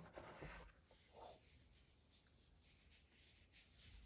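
Near silence with faint scratchy rustling from hands handling the opened cardboard box and its contents.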